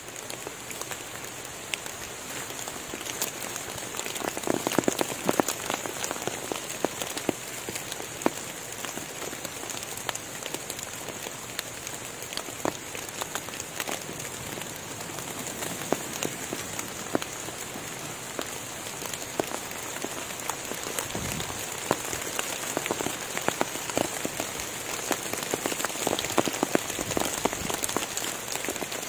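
Steady rain falling on forest foliage and leaf litter: an even hiss dotted with many separate drop ticks, over a steady high-pitched hiss.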